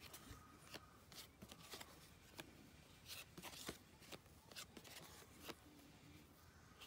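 Near silence with faint, irregular small clicks and light rustles of cardboard baseball cards being handled and compared.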